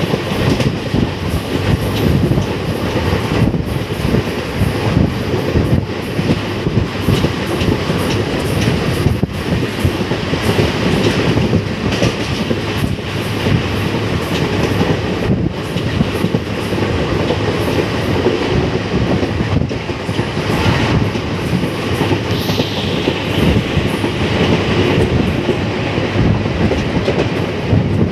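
Passenger train running along the track, heard from an open door of the moving coach: steady rumble of wheels on rails with a rapid run of clicks and knocks from the track.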